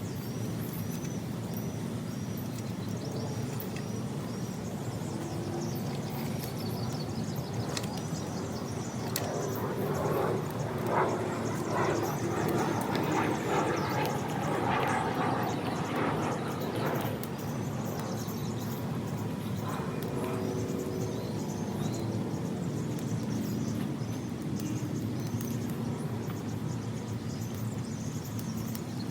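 Outdoor ambience: a steady low rumble with faint bird chirps, and a louder, noisier stretch in the middle.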